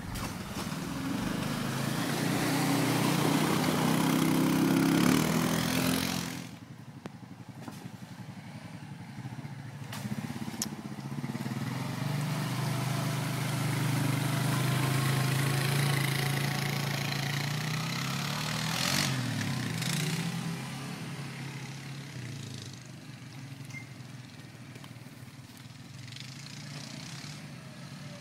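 Quad bike (ATV) engines running. The first quad revs as it splashes through a muddy stream crossing and cuts off suddenly about six seconds in. A second quad's engine then rises and falls in revs and grows quieter near the end.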